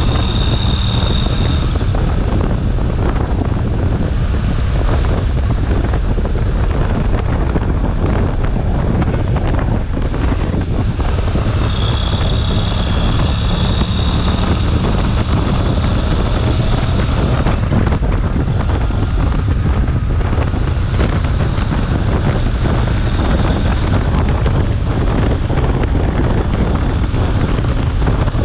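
Wind buffeting the microphone on a motorcycle at highway speed, with the engine and road noise underneath, steady throughout.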